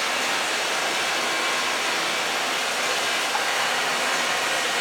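Citizen Type E32 Swiss-type CNC turning center running a cutting cycle: a steady, even hiss of machine noise with no pauses or changes.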